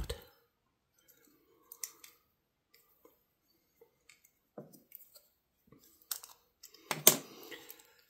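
A handful of light, irregular clicks and taps from a vintage Victorinox Fisherman Swiss Army knife being handled, its stacked metal tools and liners ticking against each other and a small hand tool, with a denser cluster near the end.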